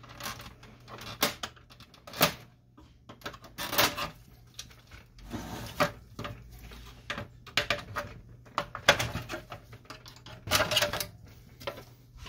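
Plastic side cover of a Samsung CLP-365W colour laser printer being pried off with a screwdriver and pulled away: irregular plastic clicks, snaps and knocks as its latches release.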